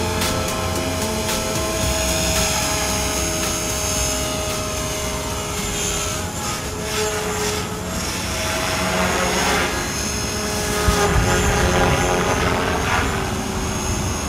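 Electric RC helicopter (Align T-Rex 500 ESP) in flight: steady rotor and motor whine. The tone sweeps as it passes, most noticeably in the second half.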